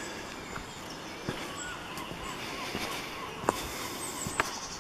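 Small woodland birds singing, with short chirps and a high trill near the end, over a steady background hiss. Soft footsteps on the path, and two sharp clicks in the second half.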